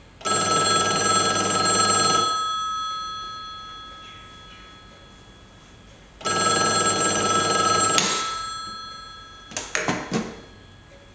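BellSouth pay phone's ringer bell ringing twice, each ring about two seconds long and about four seconds apart, the bell ringing on and fading after each. The second ring stops suddenly, and about a second and a half later there are a few sharp clicks and knocks as the handset is lifted off its hook.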